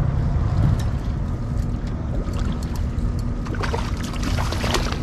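A fishing boat's engine runs steadily as a low rumble with a faint steady hum. From about three and a half seconds in, a scatter of short sharp clicks joins it.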